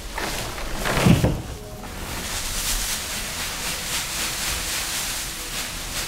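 A pitchfork tossing straw bedding: a loud thunk about a second in, then steady rustling of straw.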